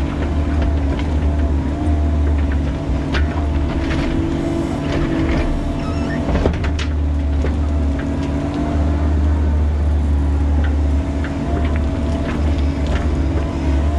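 Bobcat E45 mini excavator's diesel engine running steadily under digging load with a steady hydraulic whine, while the bucket works a rocky trench, with a few sharp knocks of rock against the steel bucket.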